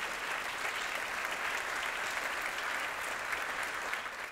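Audience applauding: many hands clapping steadily, beginning to fade near the end.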